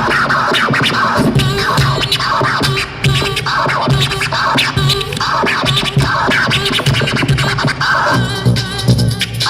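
A DJ scratching a record over a hip hop beat, with quick back-and-forth scratch strokes repeating through the music.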